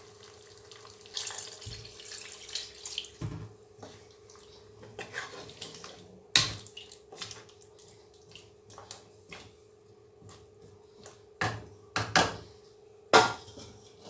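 Water poured into a pot of simmering meat and potato curry, then a wooden spatula stirring through it, with a few sharp knocks, most of them near the end, over a steady hum.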